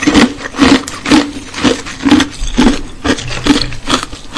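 A loud, rhythmic rasping, scraping sound, about two strokes a second, repeating evenly.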